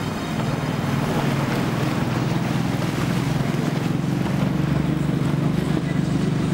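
Outboard engines of a center-console powerboat running at speed as it passes close by, a steady low drone over the hiss of its spray and wake, with wind on the microphone. The sound grows a little louder about half a second in as the boat comes nearer.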